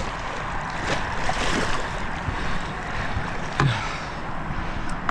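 Steady wash of water and wind noise around a small fishing boat, with a sharp knock about three and a half seconds in.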